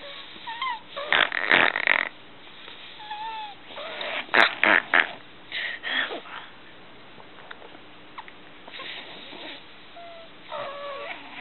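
A three-year-old child snoring in sleep: irregular rasping snorts several times, mixed with short squeaky tones that slide up and down in pitch.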